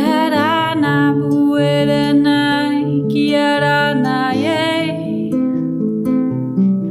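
Ngoni harp tuned to 432 Hz plucked in a repeating pattern, with a wordless sung voice sliding up into a held, wavering note at the start and again about four seconds in.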